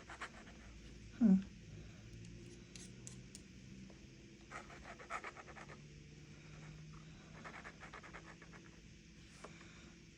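Dip pen nib faintly scratching on sketchbook paper, making clusters of quick little marks. A short sound falling in pitch, louder than the pen, comes about a second in.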